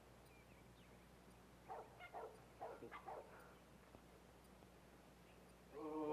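Faint, short animal calls: a few quick yelps about two to three seconds in, then a longer pitched call starting near the end.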